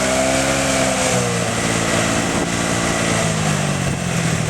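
A small engine running steadily, its pitch dipping slightly about a second in.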